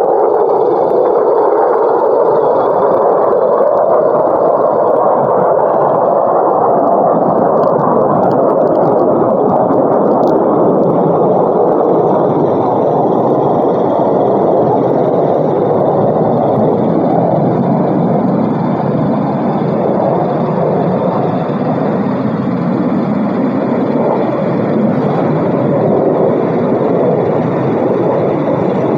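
Jet noise from two F-22 Raptors' Pratt & Whitney F119 turbofan engines on takeoff: a loud, steady rush of noise.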